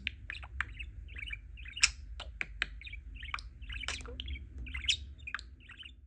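Budgerigar chattering in quick, short chirps and warbles, with a few sharp clicks among them, the loudest about two seconds in.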